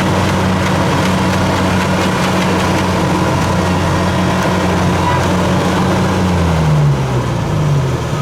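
Heavy farm machinery's diesel engine running hard at steady revs, the engine note dropping and wavering near the end as the revs fall.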